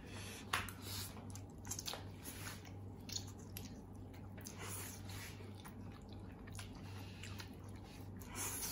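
A person eating spicy instant ramen noodles fast: irregular wet slurps and chewing every second or so, over a steady low hum.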